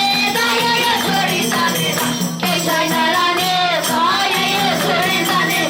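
Young Vedic students singing a devotional bhajan, with a tambourine jingling along and steady held low notes underneath.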